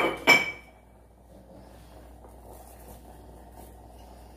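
Two sharp clinks of a utensil against cookware, a fraction of a second apart and briefly ringing, then the faint steady low bubble of a pot of rice boiling on a gas stove while salt is added.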